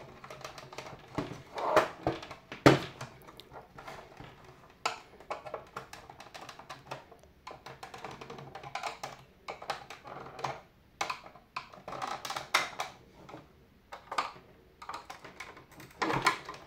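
Irregular plastic clicks, knocks and creaks from a De'Longhi Special T machine's housing as a clipped-in part is worked loose by hand and pried with a screwdriver. The sharpest knock comes just under three seconds in.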